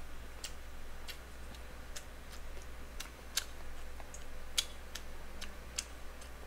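Eating sounds close to the microphone: irregular sharp clicks and smacks, a few a second, as a person eats with metal chopsticks. A faint steady hum runs underneath.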